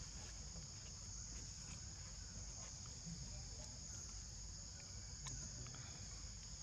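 Steady high-pitched insect chorus droning without a break, with a few faint clicks.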